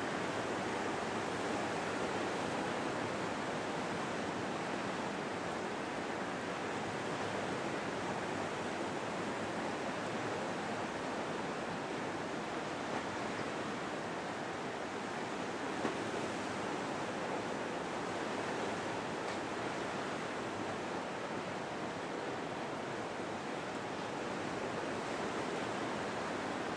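Sea surf washing steadily, an even rushing with no rhythm or engine beat in it.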